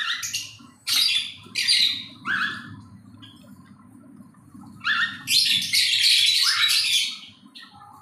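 Lovebirds screeching: a few short, harsh calls in the first two and a half seconds, then a longer burst of shrill chatter from about five to seven seconds in, over a faint low hum.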